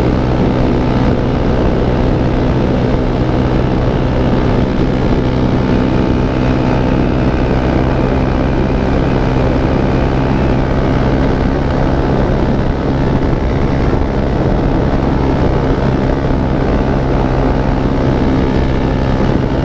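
An engine running steadily at a constant speed, a loud even drone that holds one pitch with no revving.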